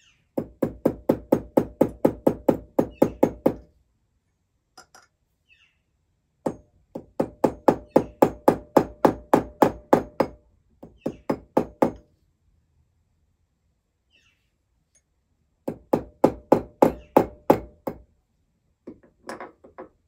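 Small jeweller's hammer striking a silver ring on a steel ring mandrel, in three quick runs of about four blows a second, then a few lighter taps near the end. The blows are closing the ring's two ends so they touch, ready for soldering.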